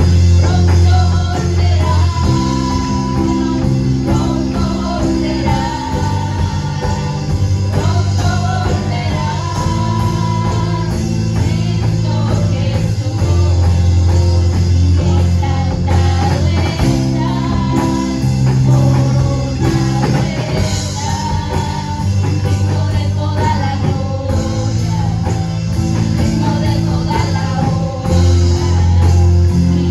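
Live Spanish-language worship music from a church praise band: a woman singing lead over electric bass, drums and keyboards, with sustained bass notes that change every few seconds.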